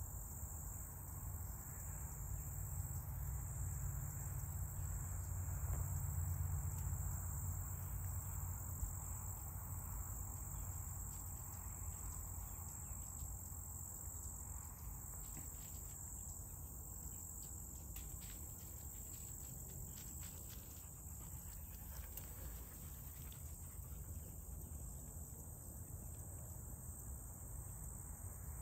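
Steady chorus of insects, a continuous high-pitched shrill that does not let up, over a low rumble that is strongest in the first several seconds. A few faint clicks come through in the middle.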